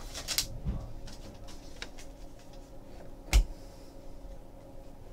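Trading cards being handled over a desk just after a foil pack is opened: the wrapper's crinkle dies away right at the start, then faint slides and clicks of cards, with one sharp knock a little past three seconds in.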